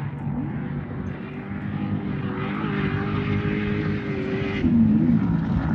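Off-road race truck's engine running at high, steady revs and growing louder as it approaches, then revving up and down in quick swings near the end.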